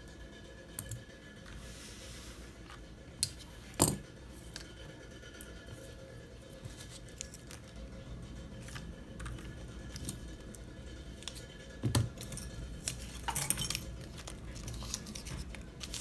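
Desk clean-up handling sounds: scattered knocks and small clinks, the loudest about four and twelve seconds in. A rustle of paper and tape scraps being gathered up comes near the end.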